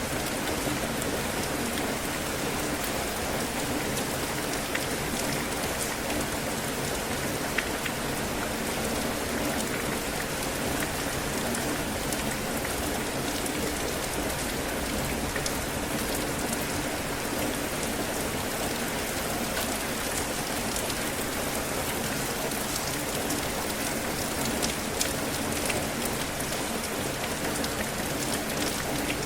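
Steady heavy rain falling, with a dense even hiss and scattered sharper drop ticks.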